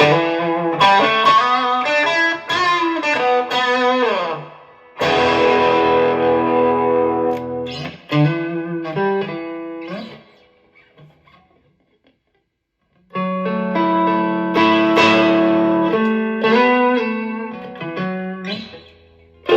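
Electric guitar played through a Pure Sky overdrive with a boost pedal engaged and Hall of Fame reverb: runs of picked notes and chords, one chord left to ring and fade, a pause of about three seconds midway, then more notes and chords.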